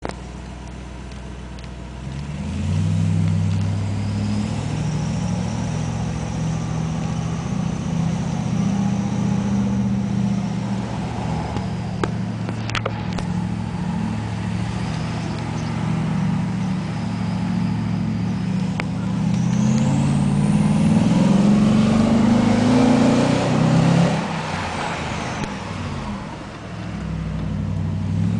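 Audi C5 RS6 twin-turbo V8 with a Milltek exhaust pulling up a steep hill: a deep exhaust rumble with a high turbo whistle over it. The revs climb to their loudest about three quarters of the way through, then drop off sharply.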